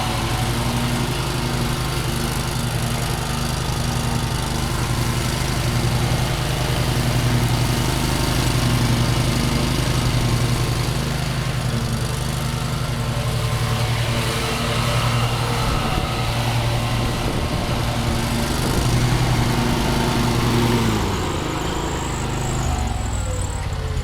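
Kawasaki 17-horsepower engine of a Yazoo/Kees Mini Max zero-turn mower running steadily, its pitch falling near the end as the engine slows.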